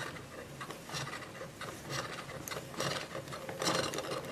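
Plastic hand crank of a Play-Doh Candy Cyclone toy being turned, its spiral augers rubbing and pressing Play-Doh down through the globe to form candy balls. It makes a run of uneven scratchy strokes, loudest near the end.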